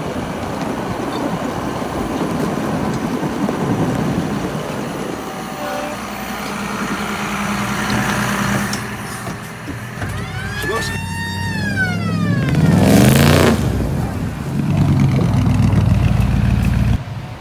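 John Deere 6155R tractor's six-cylinder diesel engine running, shortly after a cold start in sub-zero cold. A few brief falling squeals come about ten seconds in, and the engine revs up about thirteen seconds in, the loudest moment.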